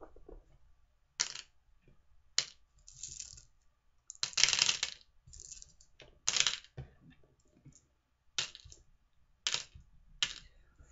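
Jelly beans being handled and dropped, clicking against each other and the surface: a string of sharp clicks with a longer rattle about four seconds in.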